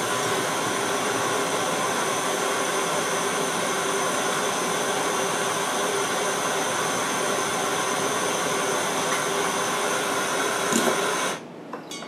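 Handheld gas soldering torch burning with a steady hiss while it heats a twisted wire splice to flow solder. The hiss cuts off about eleven seconds in, when the torch is shut off.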